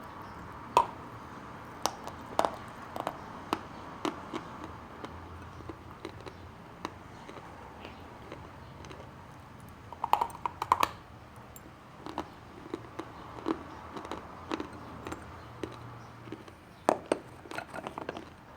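Lumps of Khrapovsky chalk being bitten and chewed: irregular sharp crunches, with a quick flurry of them about ten seconds in and another near the end.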